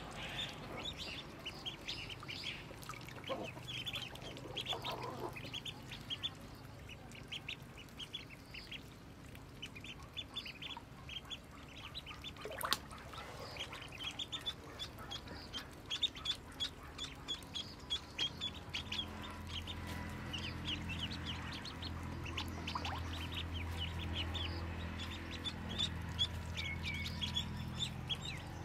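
A flock of young ducklings peeping constantly, many short high cheeps overlapping. A single sharp tap comes about halfway, and a steady low hum grows stronger in the last third.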